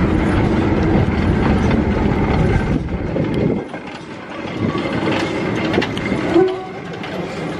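Small steam tank locomotive and its coach rolling slowly past, wheels rumbling and clacking over the rails. The noise drops sharply about three and a half seconds in, and a brief loud tone sounds a little past six seconds.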